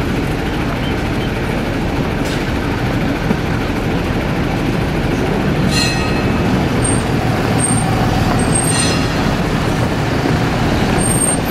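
Milan 'Ventotto' Peter Witt tram no. 1859 rolling slowly along street rails: a steady low rumble, with two short ringing tones about six and nine seconds in.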